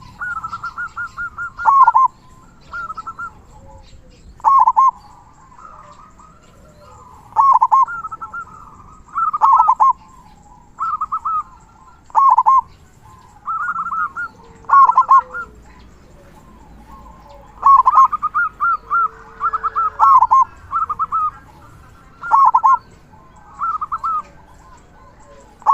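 Local zebra dove (perkutut) singing its cooing song with a big, deep 'kung', short phrases of quick rolling coo notes repeated every second or two.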